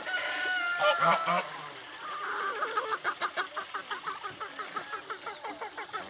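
A rooster crows once, a held call of about a second and a half, then farmyard fowl keep up a rapid run of short calls, about five a second.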